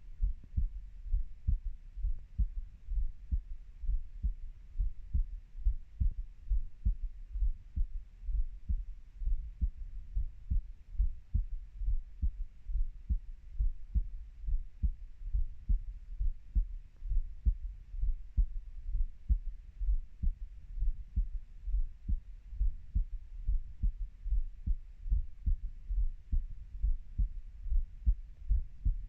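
A human heartbeat, heard as a steady, even rhythm of low thumps.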